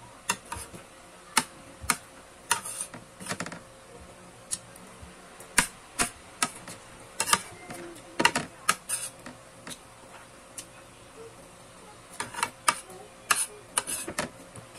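Eating sounds: a metal spoon and fork clicking and clinking against a plate at irregular moments, about a dozen sharp clicks with softer ones between, over a faint steady hum.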